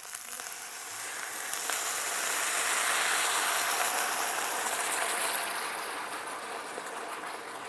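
Dry red wine poured from a bottle into a very hot stainless-steel pot of seared lamb and vegetables, hissing and sizzling as it flashes into steam. The hiss swells over the first few seconds, then slowly dies down.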